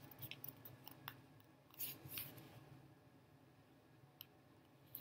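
Near silence with a few faint rustles and soft clicks of a paperback book being held up and handled in the hands.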